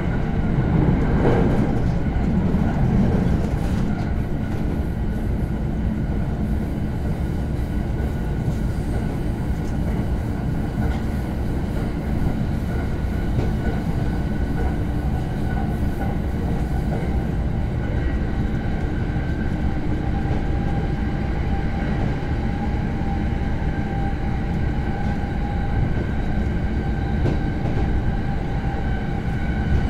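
JR East Shōnan–Shinjuku Line electric train running along the line, heard from inside the passenger car: a steady rumble of wheels on rail, a little louder in the first few seconds, with a faint steady whine above it later on.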